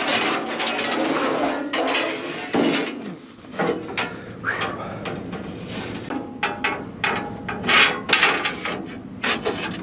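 A heavy steel plate scraping and clanking against other scrap metal as it is dragged out of a scrap bin. A long grinding scrape for about the first three seconds, then a string of sharp knocks and clanks.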